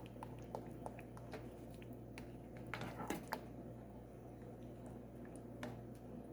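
Cornmeal porridge cooking in a pot: faint, scattered soft pops and wet squelches, with a brief louder stirring noise about three seconds in.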